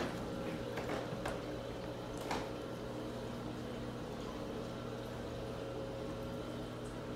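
Saltwater aquarium's filtration running: a steady rush of moving water over a low, even pump hum, with a few faint ticks in the first couple of seconds.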